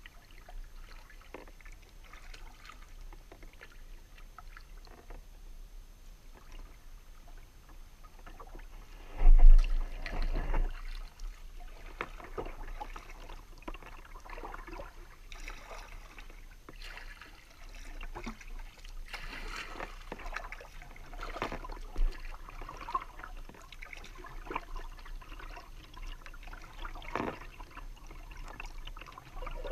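Paddle strokes in calm water, with water trickling and dripping off the blade between strokes. A loud low thump comes about nine seconds in.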